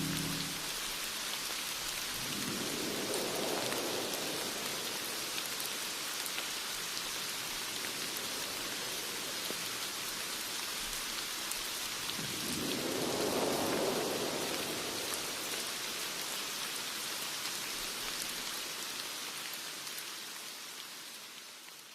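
Steady rain, with two low rolls of thunder that swell and die away, the first a few seconds in and the second about halfway through. The rain fades out near the end.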